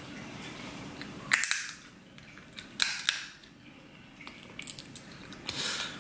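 Snow crab shell being cracked apart by hand: two sharp cracks about a second and a half apart, then a few small clicks and crackling as the shell is pulled open.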